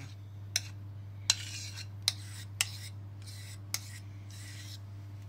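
A spatula scrapes thick strained yogurt out of a bowl into a stainless steel mixing bowl, with a handful of sharp knocks of spatula and bowl against the rims and short scraping rasps between them. A steady low hum runs underneath.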